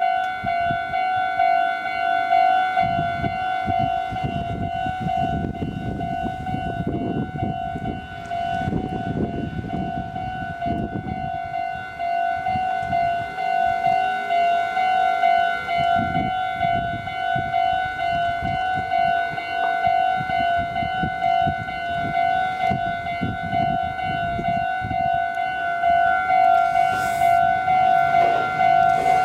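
Japanese railroad crossing bell ringing its steady repeated 'kan-kan' warning, with an uneven low rumble beneath it.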